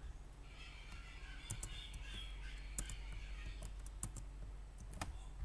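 Computer keyboard and mouse clicks, a few scattered sharp keystrokes as a line of code is copied and pasted. A faint higher-pitched background sound runs under them for about three seconds in the middle.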